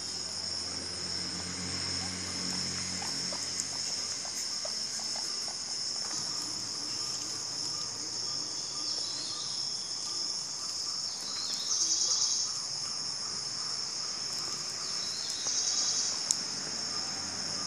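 Steady, high-pitched chirring of insects, swelling louder twice, about twelve and sixteen seconds in. Underneath are faint scattered ticks of guinea pigs gnawing kernels off a corn cob.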